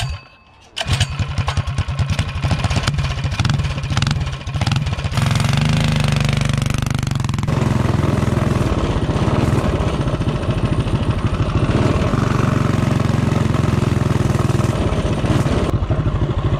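Predator 212 single-cylinder engine on a Coleman CT200U-EX minibike, fitted with a thick head gasket that lowers its compression. It starts abruptly about a second in and runs with a fast, even firing beat. Its pitch rises a few seconds later, then it runs steadily.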